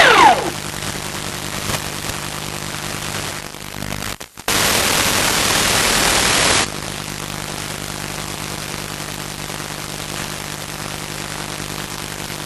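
Static hiss with a steady low hum on the analog FPV video link's audio. It drops out briefly about four seconds in, then comes back as a louder hiss for about two seconds before settling to its earlier level.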